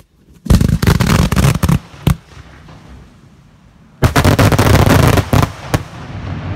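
A volley of 3-inch cylinder salute shells: a rapid ripple of mortar lift charges thumping for about a second and a half, then about two seconds later a second dense ripple of loud bangs as the salutes burst overhead, trailing off into echoes.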